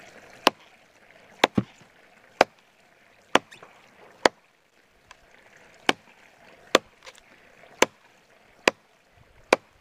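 Kershaw Camp 12 machete chopping into a fallen log, about ten sharp chops roughly a second apart, with a longer gap about halfway.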